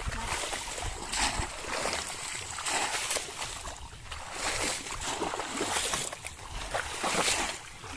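Shallow water splashing and sloshing as a bamboo polo fish trap is pushed down into it again and again while wading. The splashes come in irregular surges about every second.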